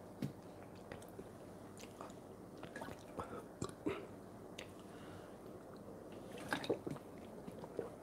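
A person drinking water: faint, irregular small clicks and mouth sounds, with a cluster of louder clicks about six and a half seconds in.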